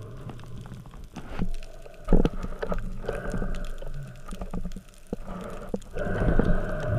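Muffled underwater noise picked up by a speargun-mounted camera on a dive: water rushing past the housing, with scattered knocks and a loud thump about two seconds in. A humming tone comes and goes in the second half.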